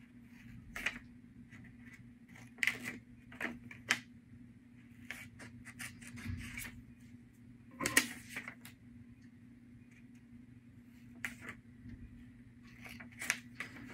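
Scissors snipping through paper: short, sharp, irregular snips about once a second, with a pause of a few seconds near the end.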